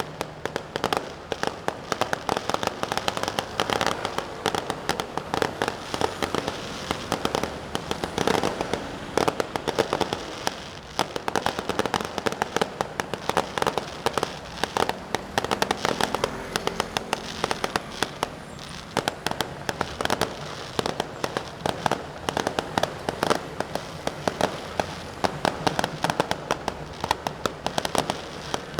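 Fireworks and firecrackers going off in a dense, continuous crackle of rapid sharp bangs, many a second, with no let-up.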